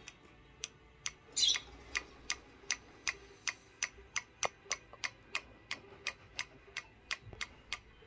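Cockatiel tapping its beak against a small hand mirror at its own reflection: a steady run of sharp taps, nearly three a second. A short call about a second and a half in is the loudest sound.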